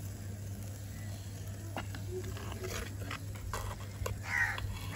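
Light clicks of a steel ladle against the clay curry pot over a steady low hum, and a short animal call a little after four seconds in.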